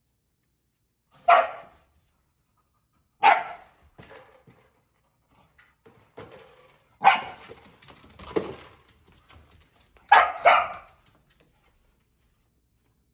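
Nova Scotia Duck Tolling Retriever barking: about six single sharp barks a couple of seconds apart, the last two in quick succession.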